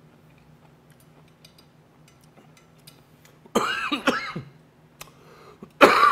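A man coughing hard in two fits, the first about three and a half seconds in and the second right at the end, as the sharp sting of fermented skate catches in his throat.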